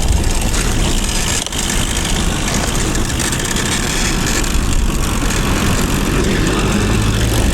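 Steady rush of wind buffeting the microphone, with rolling noise from a recumbent trike being ridden along.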